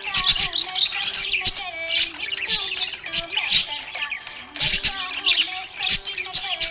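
Small pet parrots, budgies or lovebirds, chirping and chattering in a dense, continuous stream of sharp high chirps with occasional squawks, easing briefly about two-thirds of the way through.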